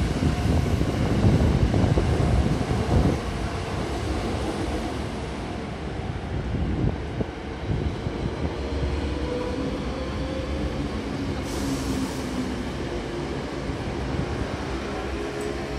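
Electric commuter train running past: a heavy rumble for the first three seconds, easing to a steadier running noise with a faint whine that rises in pitch. A brief hiss comes about twelve seconds in.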